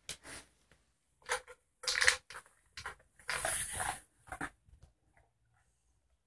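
A dog sniffing and snuffling around the floor in a run of short, breathy bursts. The longest bout comes about three seconds in, and the sniffing dies away after about five seconds.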